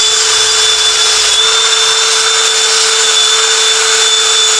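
Electric power tool motor running at a constant speed: a steady whine over a dense hiss, with no change in load.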